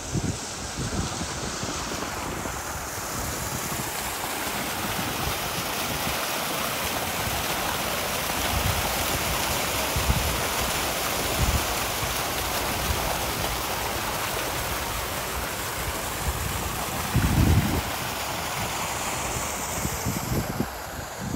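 Water splashing steadily from a tiered outdoor fountain into its basin, growing louder toward the middle and fading near the end. A few low thumps break in, the loudest about seventeen seconds in.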